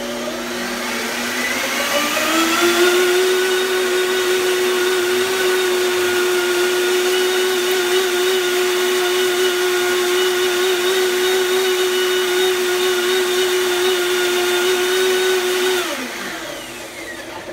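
Countertop blender motor running, pureeing sunflower seeds and water into a thick crema. Its whine rises in pitch over the first two seconds or so, holds steady, then falls away as it is switched off about a second and a half before the end.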